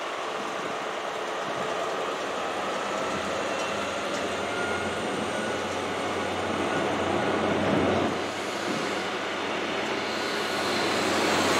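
A GWR High Speed Train's Mark 3 coaches passing at speed: a steady rush of steel wheels running on the rails. It grows louder in the last second or two.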